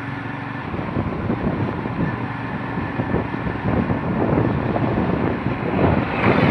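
Wind buffeting the microphone of a moving motorcycle, a rough, uneven rushing, with a louder rush about six seconds in as a mobile crane passes close by.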